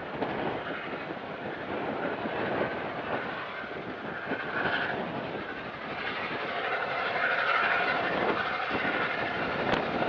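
Union Pacific 844, a 4-8-4 steam locomotive, running past with its train: a steady rumble and clatter of the train in motion, louder in the second half.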